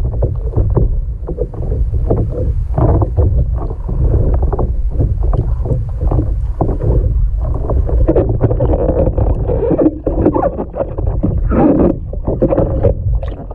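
Lake water sloshing and knocking around a submerged action camera on a stand-up paddleboard. A steady low rumble runs under frequent irregular knocks and splashes, sounding muffled.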